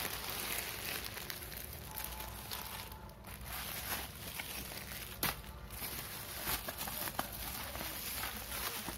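Thin plastic wrapping and a plastic bag crinkling and rustling as they are handled, with one sharp click a little past halfway.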